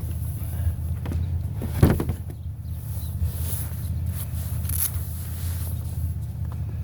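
Steady low hum of an idling vehicle engine, with a sharp knock about two seconds in and a few fainter clicks as scrap is handled.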